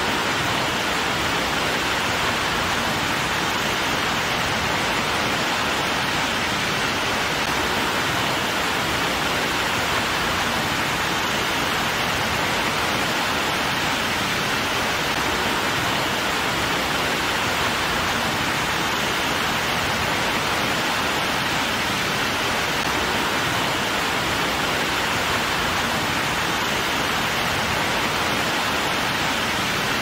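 Mountainside waterfall rushing steadily, an even, unbroken wash of falling water.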